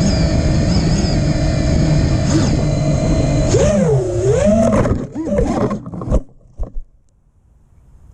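Brushless motors of an FPV quadcopter (Emax Pulsar 2306 2400KV) spinning with a steady multi-tone whine. About three and a half seconds in, the pitch swings up and down with the throttle. The sound then turns choppy and cuts off with a sharp knock about six seconds in.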